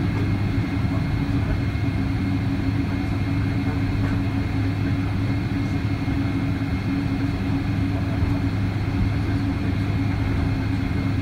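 Boeing 777-200 airliner's Pratt & Whitney PW4000 turbofans running at taxi power while the plane rolls along the taxiway, heard inside the cabin as a steady drone with a low hum and a faint high whine.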